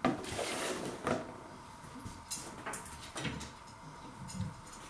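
A sharp knock, then a few lighter knocks and rustles as items are handled and moved on a kitchen worktop.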